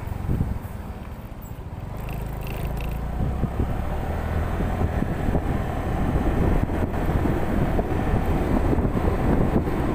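Wind rushing over the microphone of a camera on a moving motorcycle, mixed with the bike's running and road noise. It dips about a second in and then grows steadily louder.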